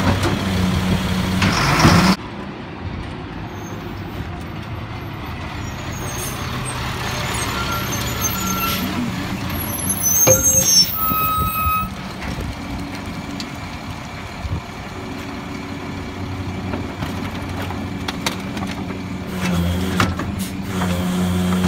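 Labrie MSL garbage truck on a Freightliner chassis: the engine runs up to drive the cart tipper hydraulics as a cart is dumped, ending in a loud clatter about two seconds in. It then drops to a lower steady run, with a brief squeal and air hiss around halfway through, typical of the truck's air brakes. Near the end the engine runs up again as the tipper works the next cart.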